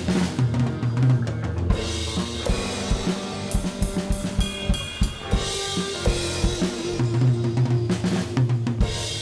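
Acoustic drum kit played along to a recorded jazz-rock fusion instrumental: kick drum, snare with rimshots and cymbals hitting over steady held bass and chord notes.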